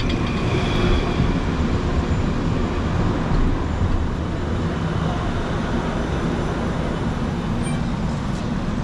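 Kaohsiung Circular Light Rail tram pulling into the station platform, a steady low rolling rumble.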